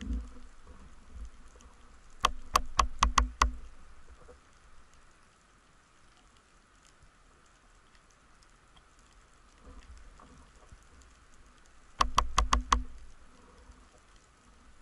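Underwater sound picked up by a diver's camera: a faint, steady crackle, broken twice by a quick run of five or six sharp clicks, about two seconds in and again about twelve seconds in.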